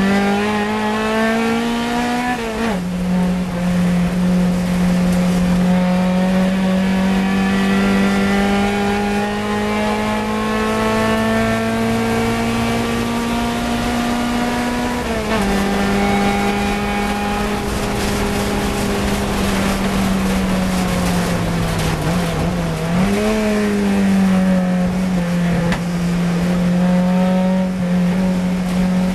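A Fiat 124 CC Coupe race car's twin-cam four-cylinder engine at full throttle, heard from inside the cabin. The note climbs steadily through each gear, with upshifts about three seconds in and again about fifteen seconds in. A little after twenty seconds it drops off, then pulls up again.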